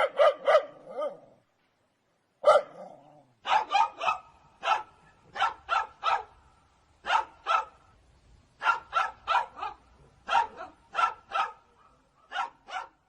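A dog barking repeatedly in short, sharp barks. It opens with three quick barks, gives a single bark a couple of seconds later, then keeps barking steadily in quick pairs and threes.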